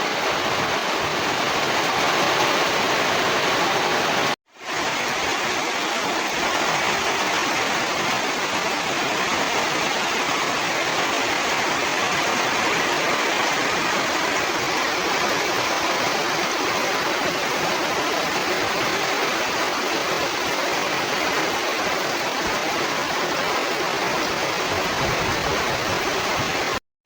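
Steady rushing noise with no distinct events, cut by a brief dropout about four seconds in.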